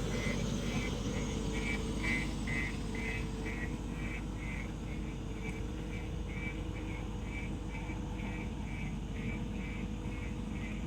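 Heavy diesel machinery, an excavator or dump truck, running steadily with a low rumble. A faint high pulsing sound repeats about two to three times a second over it.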